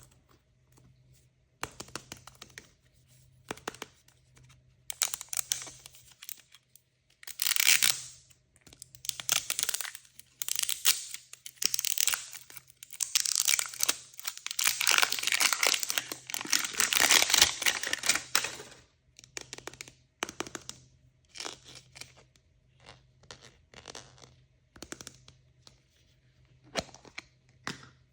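Plastic or foil packaging being torn open and crinkled by hand, as in opening a blind bag. It comes in rustling bursts, heaviest in one long tear-and-crinkle stretch about halfway through, then tails off into lighter, scattered crinkles and clicks.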